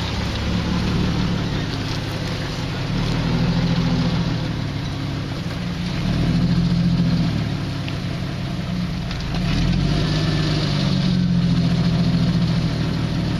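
Jeep Wrangler's engine running at low revs while it crawls through mud and rocks, the engine note swelling three times as the throttle is fed in and eased off.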